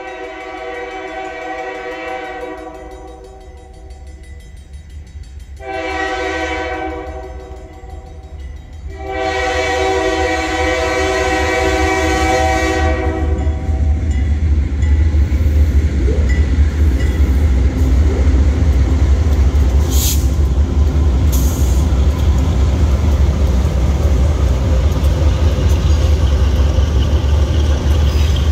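Air horn of a Providence & Worcester GE B39-8E diesel locomotive sounding three blasts, long, short, then long. After the horn stops comes a heavy steady rumble of the locomotives' V16 diesel engines and the freight train rolling by, with a couple of sharp clicks from the wheels.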